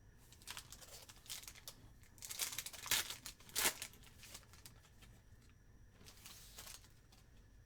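Foil trading-card pack wrapper being torn open and crinkled, in irregular crackling bursts, the strongest around three seconds in, with another short burst near the end.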